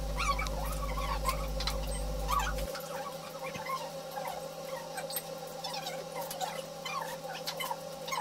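Utensils clicking and tapping on bowls and plates at a meal, with faint indistinct chatter and a steady hum; a low hum underneath stops about three seconds in.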